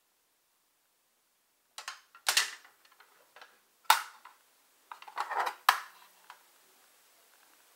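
Hard plastic clacks and rattles as a folding plastic paint palette is folded shut and handled: a few sharp clicks starting about two seconds in, the loudest near two and four seconds, then a quick cluster of clatters.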